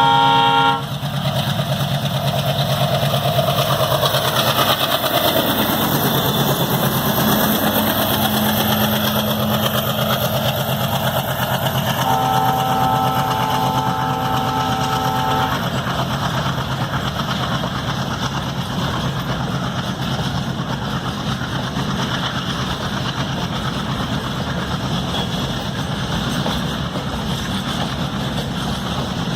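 ALCO diesel locomotive of a container goods train chugging steadily. Its horn cuts off less than a second in and sounds again for about three seconds roughly halfway through.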